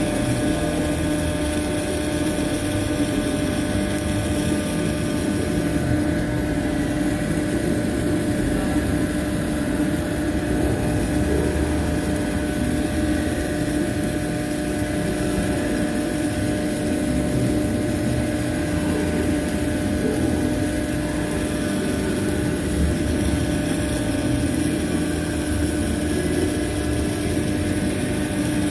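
Steady drone of running welding equipment, a machine hum with a constant low tone over a rough rumble, even throughout.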